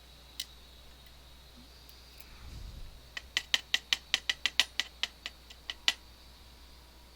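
Small sharp metallic clicks as driver pins and springs are worked out of a DOM ix TwinStar lock's chambers: one click, a brief low rumble of handling, then a quick run of about a dozen clicks, about four a second, that stops suddenly.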